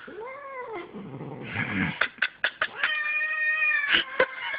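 Long-haired black-and-white cat yowling in protest at being groomed: a short meow that rises and falls, then a long, steady, held yowl of about a second. A quick run of sharp clicks comes between the two calls, and two more clicks follow.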